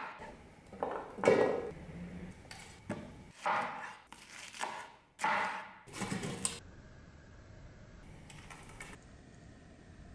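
Knife chopping carrot on a wooden cutting board and vegetables clattering into an enamel pot, heard as a string of short separate knocks and clinks. After that, only a faint steady background.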